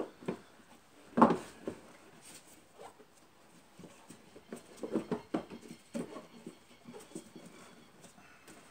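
Irregular plastic clicks and knocks from a car's air filter housing being worked open by hand, its lid and clips being pried and handled. The loudest knock comes about a second in, with a cluster of knocks around five seconds in.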